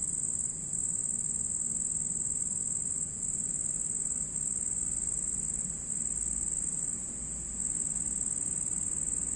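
Cricket trilling: a continuous high-pitched trill, broken by a few brief pauses.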